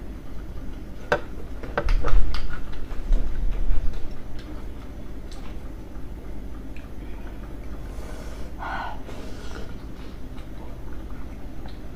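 Eating sounds: scattered sharp clicks and knocks of utensils, with low thumps in the first few seconds and a brief soft mouth noise about nine seconds in, as steamed dumplings are eaten.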